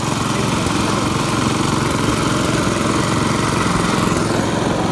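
Small engine running steadily, driving a sugarcane juice crusher with a large flywheel.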